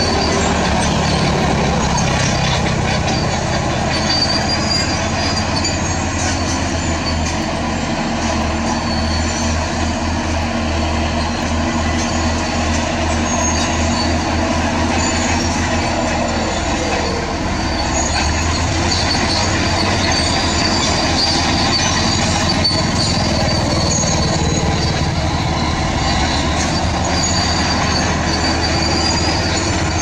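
Shantui SD16F crawler dozer's diesel engine running steadily under load as it pushes rubble, with clanking and intermittent high-pitched squeals from its steel track undercarriage.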